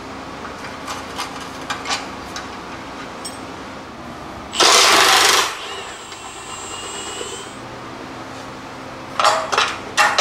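Air-powered wrench on the S10's motor mount bolts: one loud burst of about a second near the middle, a thin high whine just after it, and two or three short bursts near the end. Light clicks of tools on the metal come in the first couple of seconds.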